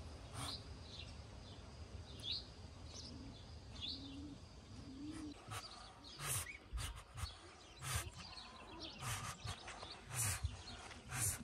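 A few short, high bird chirps, then dry hay rustling and crackling in quick bursts as a Muscovy duck hen shifts and works the nest material around her.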